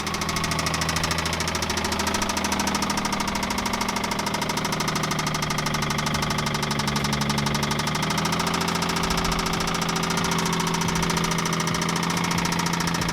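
Car engine idling steadily, its note shifting slightly about eight seconds in.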